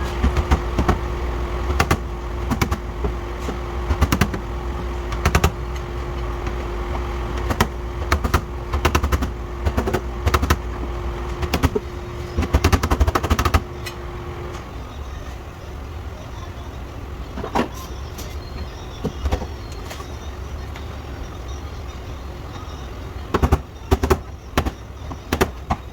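Body-repair work on a car panel: irregular sharp knocks and quick runs of taps over a steady low rumble. A steady hum runs through the first half and stops about halfway.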